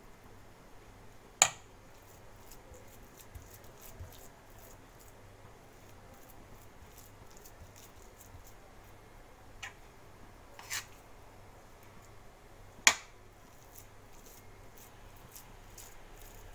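Mashed potato and egg filling being spread over rolled dough with a steel spoon and fingers: mostly faint, with a few sharp clicks, the loudest about a second and a half in and near thirteen seconds.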